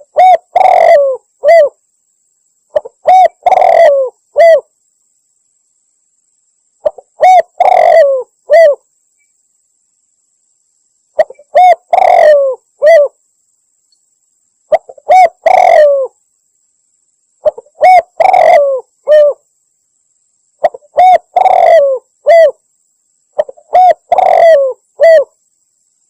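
Spotted dove (tekukur) cooing lure call, loud, repeated eight times about every three to four seconds, with silence between. Each phrase is a short note, a longer note, then one or two short notes.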